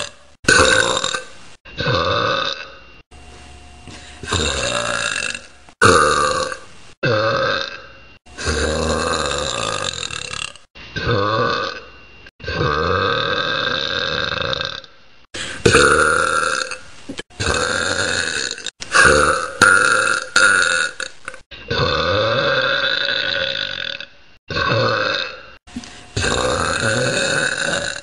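A young woman belching over and over: about twenty loud burps in a row, most short and a few drawn out for two seconds or more, each starting and stopping abruptly.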